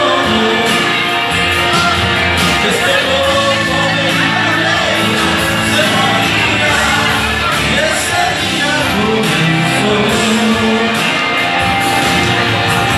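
A man singing a Latin pop song into a microphone over a loud karaoke backing track played through the PA.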